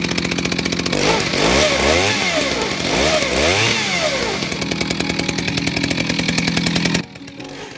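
Chainsaw with a 4-foot bar and ripping chain running hard, ripping lengthwise along a log; its pitch swings up and down twice early on, then holds steady under load. The sound drops away sharply near the end.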